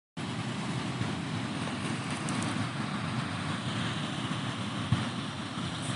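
Pacific Ocean surf washing steadily against the seawall, with wind buffeting the microphone.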